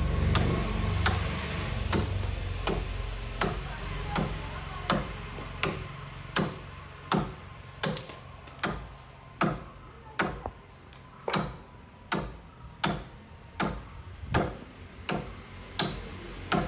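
Axe chopping into tree wood in steady, evenly spaced strokes, about four blows every three seconds.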